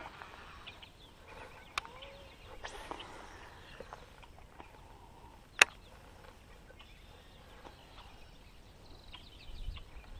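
Faint bird calls, short chirps heard on and off over quiet outdoor ambience. A sharp single click comes a little past halfway, with two softer clicks in the first few seconds.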